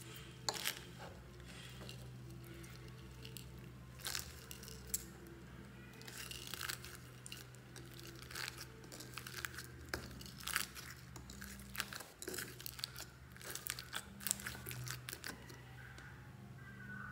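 Foam-bead slime (floam) being squeezed and kneaded by hand, giving irregular crunching crackles and pops as the tiny polystyrene beads press together, thickest in the second half.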